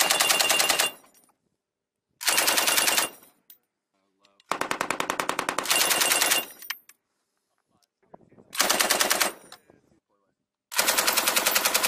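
M240 medium machine gun firing five bursts of rapid automatic fire, mostly about a second long, with a longer burst of about two seconds in the middle.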